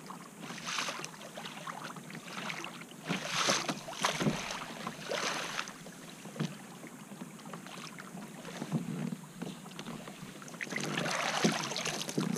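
Water splashing and lapping against the hull of a moving Hobie fishing kayak, in uneven surges every second or so and a longer spell near the end, with some wind on the microphone.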